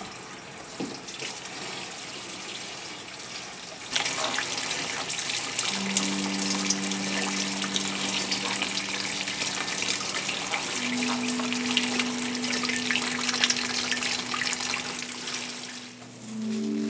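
Kitchen faucet running into a stainless steel sink while peppers are rinsed by hand under the stream, louder from about four seconds in and stopping near the end. Several steady held tones sound over the water from about six seconds in.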